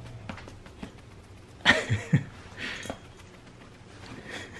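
A pit bull gives a short bark about a second and a half in, then a smaller sound a second later, against a quiet room.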